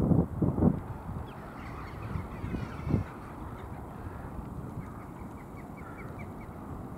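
Wind buffeting the microphone in gusts, loudest at the start and again about three seconds in, with birds calling in the background: a wavering run of calls around two seconds in and a quick series of short notes near the end.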